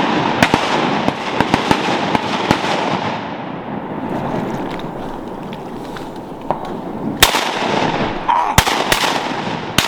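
Several shotguns firing in rapid volleys, the shots overlapping and echoing. There is a cluster of shots at the start and another from about seven seconds in.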